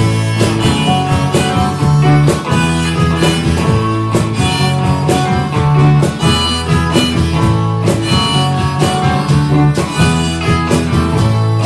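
A band's song with harmonica over guitar and a steady drum beat, about two beats a second.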